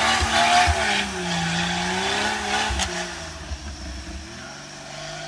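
A vehicle's engine held at high revs with its tires spinning in snow, then easing off about three seconds in to a quieter running engine.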